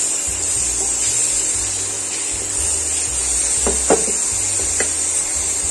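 Onion and ginger-garlic paste sizzling steadily as it fries in oil in a nonstick pan, stirred with a wooden spatula, with a few short scrapes of the spatula about four seconds in.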